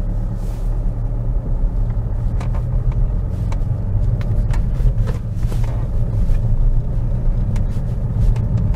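Saab 9-5 NG heard from inside its cabin pulling away slowly and gathering speed: a steady low engine and road rumble, with a few scattered light ticks.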